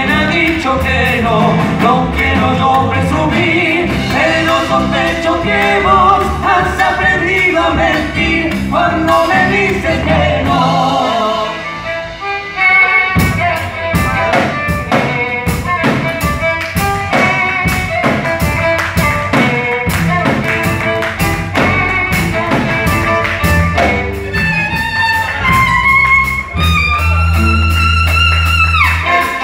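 Live band with drum kit, electric bass, acoustic guitar and violin, with singing over the first dozen seconds. After a brief dip the band plays an instrumental passage with a steady drum beat, and holds a long chord near the end.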